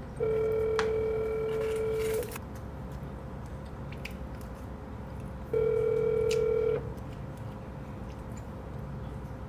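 Two long, steady electronic beeps: the first lasts about two seconds, and the second, just over a second long, comes about halfway through.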